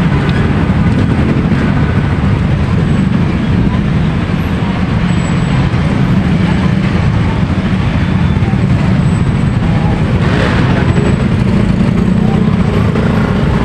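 Steady city street traffic noise from a busy avenue, mostly deep and low, with a brief louder swell about ten seconds in.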